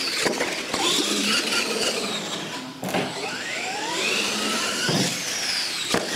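R/C monster trucks' electric motors whining, the pitch of several overlapping motors rising and falling with the throttle, with a couple of sharp knocks about three seconds in and near the end.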